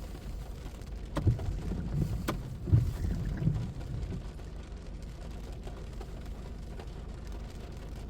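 Low steady rumble of a car driving, heard from inside the cabin, with two sharp clicks and a few dull knocks in the first four seconds.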